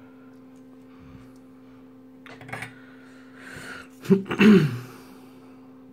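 A steady low hum with soft handling noises from wire work. About four seconds in come a couple of sharp clicks, then a short, loud breathy vocal sound, like a sigh or sniff.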